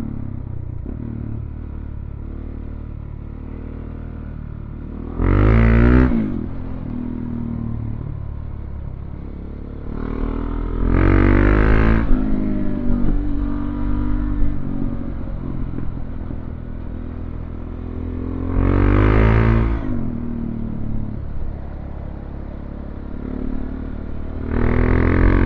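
Motorcycle engine running at road speed, opened up hard four times, its note climbing with each burst of throttle before easing back to a steadier drone.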